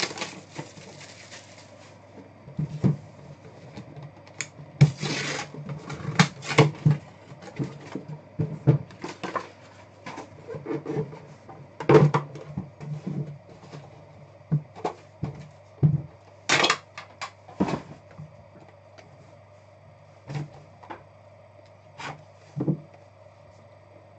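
Hands opening a cardboard Panini Immaculate Baseball trading-card box: irregular knocks of the box and lid against the table, with brief scraping and rubbing as the box is slid open and the inner box lifted out. The knocks come thick in the first half and thin out later.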